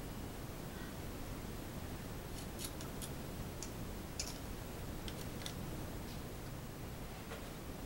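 Sparse light metallic clicks and ticks of small parts and a hand tool being handled at the rear hub of an electric-assist bicycle, bunched in the middle with a couple more near the end, over a steady low hiss.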